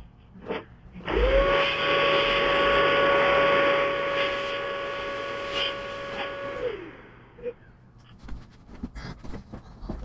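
Vacuum cleaner motor switched on about a second in, running at a steady whine for about five seconds, then winding down near seven seconds. Its hose is clearing dust from an opened laptop. Light clicks of handling follow.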